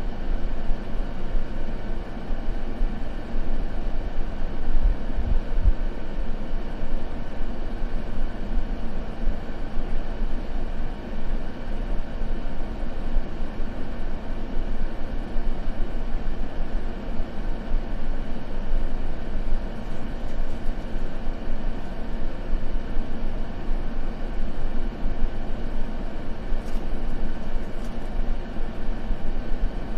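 Steady white noise for sleep: a continuous, even rushing hiss weighted toward the low end, with a soft rumble underneath.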